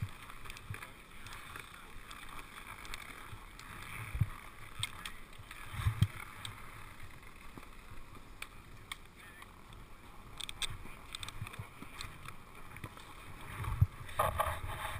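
Snowboard binding ratchet straps being worked and tightened, giving scattered short clicks, with a few dull thumps of handling against the chest-mounted camera, over steady background noise.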